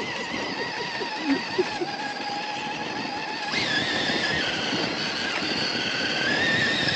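Radio-controlled crawler's electric motor and gear drivetrain whining steadily under load as it climbs a steep slope, the pitch stepping up about halfway through. Two short knocks come about a second and a half in.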